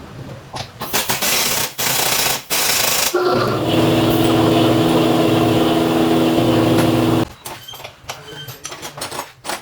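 Pneumatic impact wrench tightening suspension bolts. Three short bursts come first, then one continuous run of about four seconds that stops abruptly.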